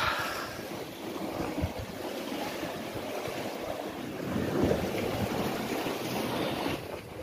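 Sea waves washing and breaking against a rocky shore, with wind buffeting the microphone; the surf swells louder about halfway through.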